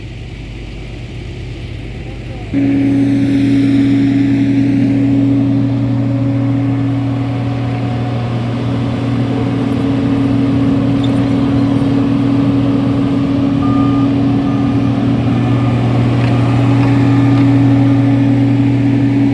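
Heavy diesel engine of road-building machinery running steadily at a constant speed. It gets abruptly louder about two and a half seconds in and then holds steady.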